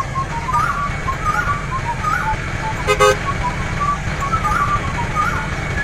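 Steady low engine rumble under a simple tune of short, high, hopping notes, with a short horn toot about three seconds in.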